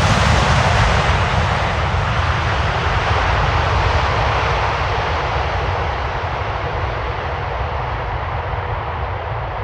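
Jet airliner's engine noise, loud and fading steadily as the aircraft moves away after passing close by.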